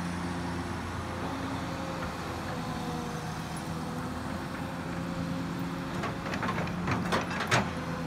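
Kobelco excavator's diesel engine running steadily under load while the hydraulics swing the boom out and lower the bucket into the pond mud. A few sharp clanks come near the end.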